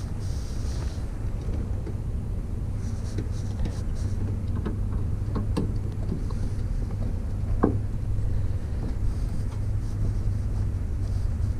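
Scattered light clicks and taps of a headlight bulb and its plastic clip being handled and seated in a 2015 Camaro's headlight housing, over a steady low rumble.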